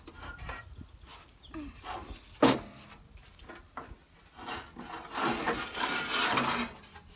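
Tractor radiator scraping and knocking against its sheet-metal shroud as it is worked loose and lifted out: one sharp knock about two and a half seconds in, then a longer rough scraping near the end.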